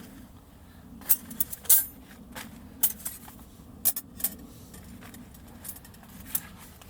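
About a dozen light clicks and metallic clinks at uneven intervals, like small hard gear being handled and set down, the loudest about two seconds in.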